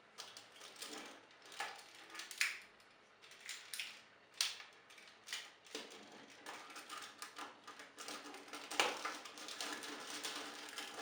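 Hard plastic parts of a Titan Megazord transforming toy clicking, knocking and rattling as they are handled and pegged together, in a string of irregular sharp clicks.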